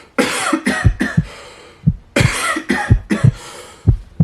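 A person coughing hard in two loud bouts, each a string of several harsh coughs in quick succession. The coughing is put on as a faked coughing fit.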